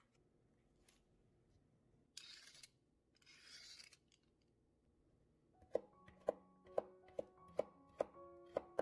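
A kitchen knife chopping carrot on a wooden cutting board: sharp knocks about two a second, starting a little over halfway through, under soft piano music. Earlier come two short rasping swishes.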